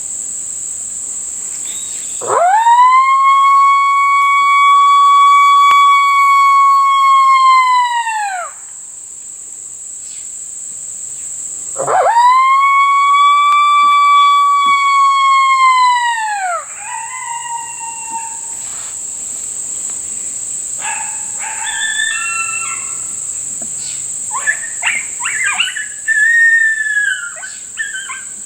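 Coyote howler call (MFK Howling MOFO) blown in two long lone howls, each jumping up sharply in pitch, holding steady, then dropping off at the end. These are followed by a run of shorter broken yips and howls. Insects drone steadily throughout.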